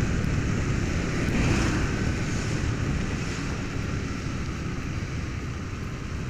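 Riding noise from a Honda CG 150 Fan motorcycle on a rain-soaked road: wind rushing over the helmet camera's microphone, with tyres hissing on the wet tarmac. The rush fades gradually as the bike slows.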